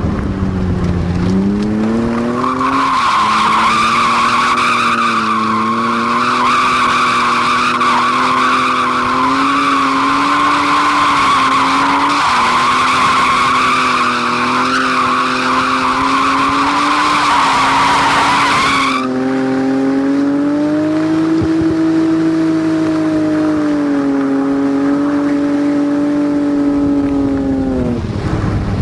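BMW 325is straight-six engine held at high revs while the rear tyres squeal in one long continuous drift. The squeal starts a couple of seconds in and cuts off abruptly about two-thirds of the way through, leaving the engine running on alone, its revs rising and easing.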